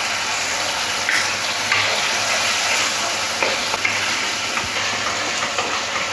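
Onion and capsicum in chilli sauce sizzling in a nonstick wok as a wooden spatula stirs and scrapes through them, with a little water just added to the pan. A steady sizzling hiss with a few sharper scrapes of the spatula.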